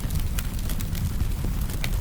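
Wood fire burning: a steady low rumble of the flames with sharp crackles and pops from the burning logs, two louder pops about half a second in and near the end.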